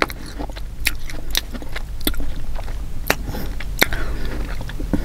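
Close-miked chewing of a sweet dried green plum that still has its seed inside, with scattered sharp wet mouth clicks.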